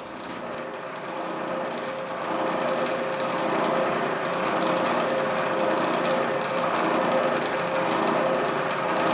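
Milling machine spindle starting up and running steadily with an edge finder in it. It builds over the first couple of seconds, then holds an even motor hum with a steady tone.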